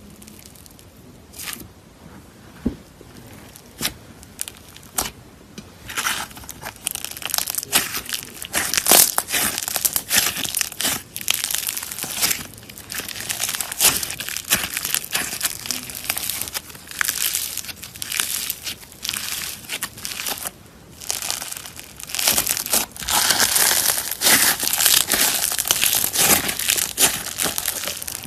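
Slime being squeezed and worked by hand, crackling and popping. A few scattered pops come at first, then a dense run of crackling from about six seconds in, with a brief lull about three quarters through.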